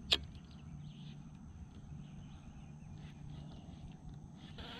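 One sharp click right at the start as the baitcasting reel is engaged after the cast, followed by a faint, steady outdoor background while the popping frog is worked.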